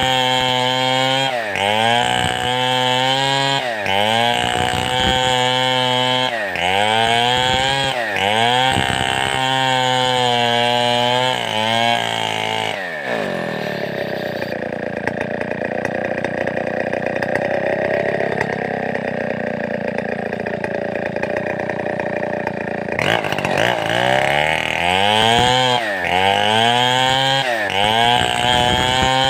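Large two-stroke chainsaw of the Stihl 070 / New West 707 type, its throttle pumped in a steady swinging rhythm so the engine rises and falls in pitch about once every second and a half. In the middle it settles for about ten seconds into a steadier, lower running before the rhythmic revving starts again.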